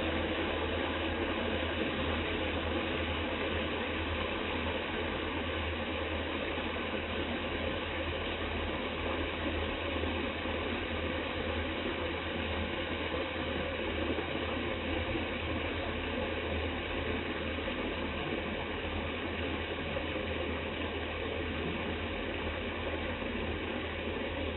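Food cooking in a pot or pan, a steady dense crackle and bubbling.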